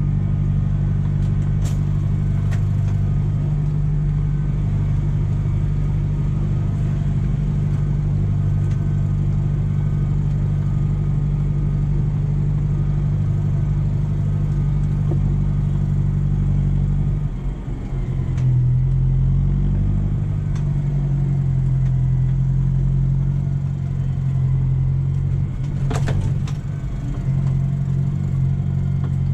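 Tractor engine heard from inside the cab, running steadily as it drives, its pitch dropping to a lower steady note a little past halfway as the engine slows. A brief clatter near the end.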